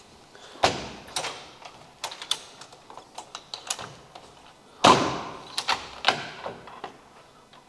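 A window being shut by hand: a series of clicks and knocks from the frame and handle, with two heavier bangs, the louder about five seconds in.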